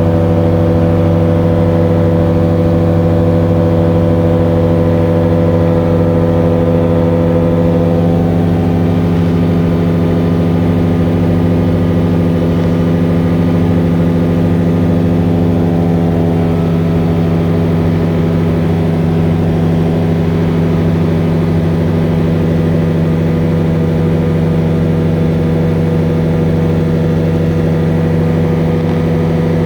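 A motor or engine running steadily at constant speed: a low, even hum whose pitch shifts slightly about eight seconds in.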